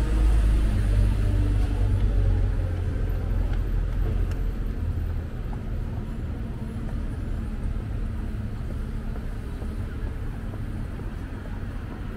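Street traffic: a passing vehicle's engine makes a loud low rumble over the first five seconds, then fades, leaving a steady low hum of road traffic.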